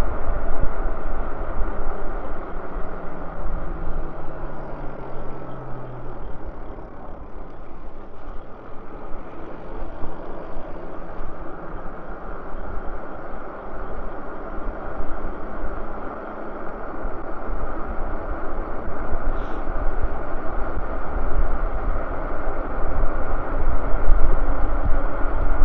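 Wind buffeting the microphone and tyre rumble on asphalt from an e-bike riding along a street, a dense, steady noise with a faint hum that drops in pitch a few seconds in. It eases off in the middle and grows louder again near the end.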